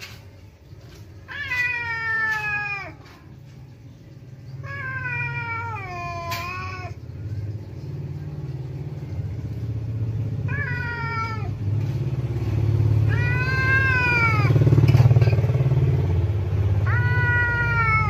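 A cat caterwauling in territorial anger at an intruding cat: five long, drawn-out yowls, each rising then sagging in pitch, the last still going at the end. A low rumble runs underneath, getting louder toward the later yowls.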